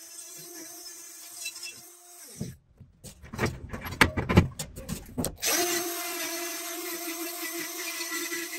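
Electric straight die grinder running steadily, its rotary burr grinding the edge of a cast metal key held in a bench vise. For about three seconds in the middle the grinding stops, and there is a clatter of loud knocks as the tool is set down on the table and the key is shifted in the vise. Then the grinder runs and grinds again.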